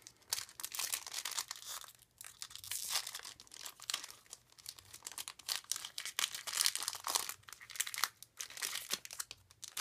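Crinkling and tearing of a Pokémon card booster pack's foil wrapper as it is ripped open by hand, with the rustle of the cards being slid out of it near the end.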